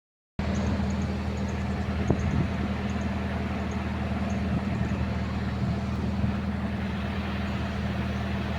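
Isuzu 4HK1 four-cylinder diesel engine of a Hitachi excavator idling steadily, with one short knock about two seconds in.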